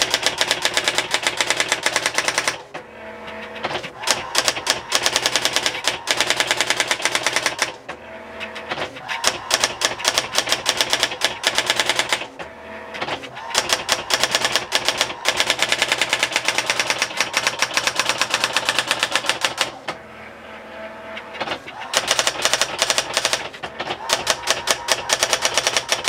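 Brother GX-6750 electronic typewriter running its self-demo with no daisy wheel fitted: the bare print hammer strikes in fast runs of sharp clicks. The runs break four times into a short pause with a quieter motor whir.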